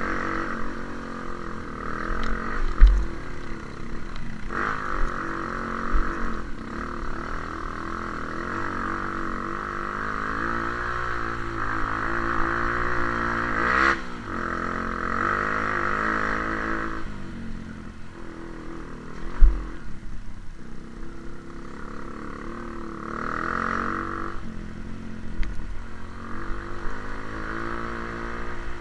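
Trail motorcycle engine running, its pitch rising and falling with the throttle. Two sharp thumps stand out, about 3 seconds in and again past the middle.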